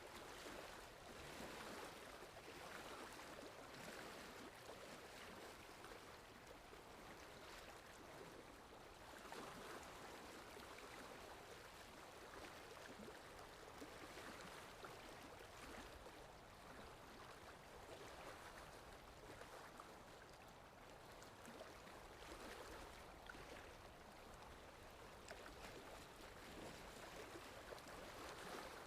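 Faint sea surf: waves washing ashore in a steady hiss that swells and eases every few seconds.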